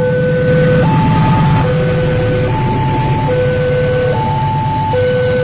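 A level-crossing warning alarm sounds a two-tone chime, alternating between a lower and a higher tone about every second, while a diesel-hauled freight train of cargo vans rumbles through the crossing.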